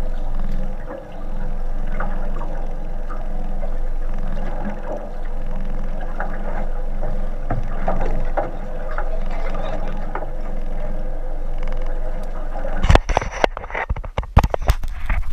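Fishing boat's engine idling with a steady low hum, water slapping against the hull and small scattered ticks over it. About two seconds before the end, loud irregular knocks and rumbles begin.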